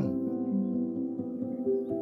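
Soft background music of steady held tones. The last of a calf's moo falls away at the very start.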